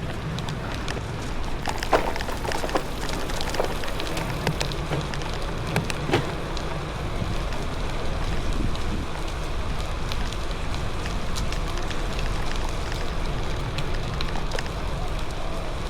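Steady rain hiss over a low rumble, with a few sharp taps, the loudest about two and six seconds in.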